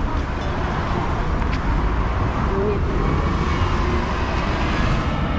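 Steady road traffic at a city intersection, with a transit bus driving past close by.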